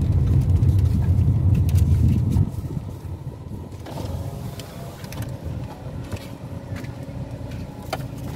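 Car running, heard from inside the cabin: its low road and engine rumble drops off about two and a half seconds in as the car slows to a stop, leaving a quieter idle with a few faint clicks and rustles.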